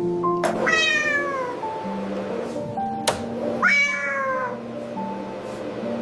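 A cat meows twice, each meow falling in pitch, over background music with long held notes. There is a single sharp click about three seconds in.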